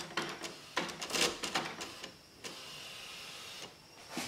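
Canon PIXUS iX6830 inkjet printer's print-head carriage mechanism: a quick series of clicks and clatter, then the carriage motor whirs steadily for about a second and stops abruptly as the carriage travels to the middle for head removal.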